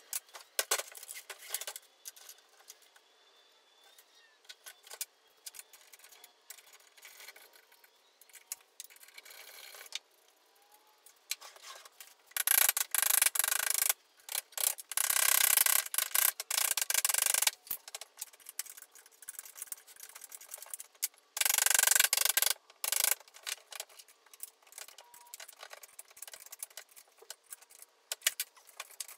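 Hand-tool work on a bench vise as it is unbolted: scattered clinks and knocks, with loud rasping scrapes for several seconds a little before halfway and again briefly later.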